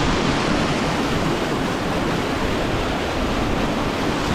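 Raging floodwater rushing over a waterfall: a steady, unbroken wash of water noise.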